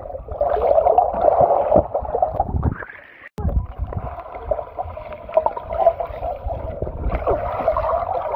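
Water sloshing and splashing in a swimming pool, a steady churning noise that cuts out abruptly about three seconds in and then resumes.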